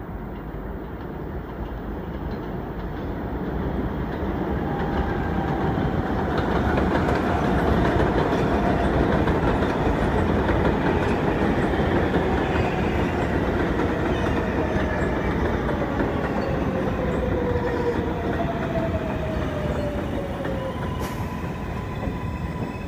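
New York City Subway train pulling into an elevated station, its wheels rumbling and clattering over the steel elevated structure. The sound builds as the train approaches and passes, and a whine falls in pitch as the train slows. A steady high tone comes in near the end.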